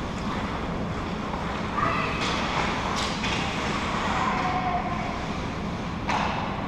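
Ice hockey rink during play: a steady arena hum with skates scraping on the ice and a few sharp clacks, about two to three seconds in and again near the end, under faint distant voices.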